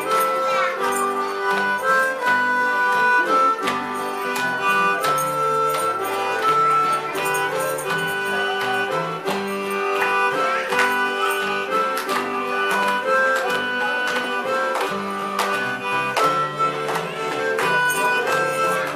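Instrumental break of a country gospel song: a harmonica plays the melody in held notes over strummed acoustic guitars.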